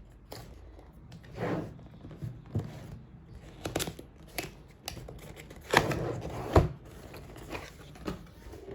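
Cardboard box and packaging of a mechanical keyboard being handled and opened: irregular rustling, scraping and knocks, the two sharpest a little under a second apart about six seconds in.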